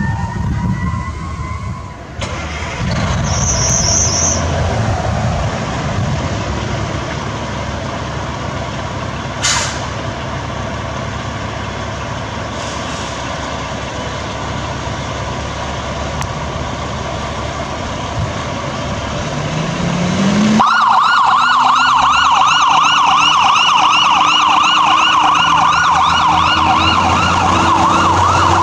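Fire engine rumbling as it pulls out, then about two-thirds of the way in its sirens come on: a loud, fast electronic yelp over a low mechanical siren slowly winding up. A rising siren wail fades out in the first two seconds.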